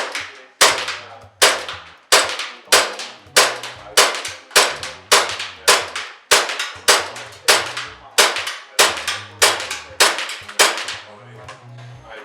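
ASG/KWA M93R II gas blowback airsoft pistol, running on green gas, fired in single shots at a steady pace of about one every 0.6 s, some seventeen shots in all. Each shot is a sharp crack with the metal slide's clack and a short ringing tail. The shots stop near the end.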